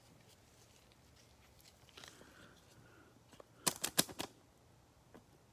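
Trading cards being handled on a table: faint rustling, then a quick cluster of sharp clicks and taps about three and a half seconds in.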